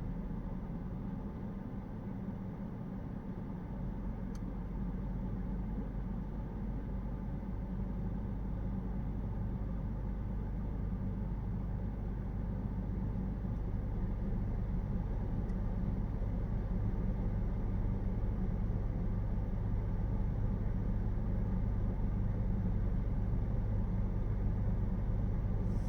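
Steady low hum of a Zeekr X electric car, growing slowly louder, with no seatbelt-reminder chime sounding.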